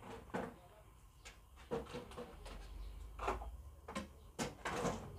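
A few short knocks and clicks from handling pliers and wire on a workbench, the loudest near the end.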